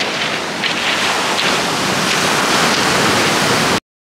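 Heavy surf breaking and washing up the beach, a loud steady rush, with some wind on the microphone; it cuts off suddenly near the end.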